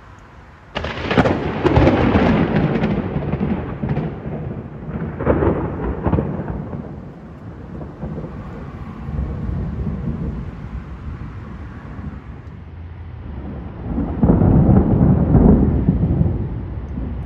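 Thunder: a sudden loud clap about a second in that rolls on for a few seconds, another peal around five seconds, low rumbling, then a second loud rumble near the end.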